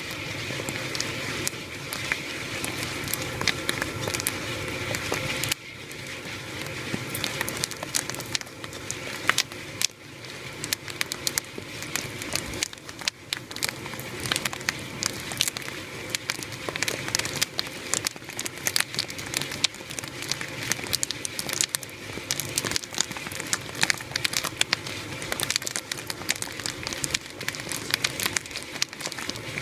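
Kettle corn popping in a hot kettle: many rapid, irregular pops of corn kernels over a steady hiss. The hiss drops about five and a half seconds in, and the popping grows denser after that.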